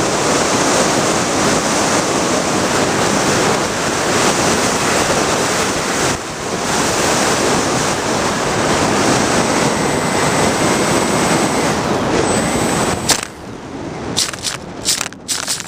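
Steady rush of wind over the model plane's onboard camera as it glides low over a field. About thirteen seconds in the rush drops away after a sharp click, and a series of crackles and scrapes follows as the plane touches down and skids into the grass.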